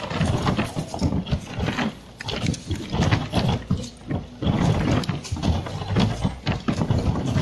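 Soil and clods of earth thrown down onto wooden coffin lids in a grave, landing in a rapid, irregular run of dull thuds with scattering dirt.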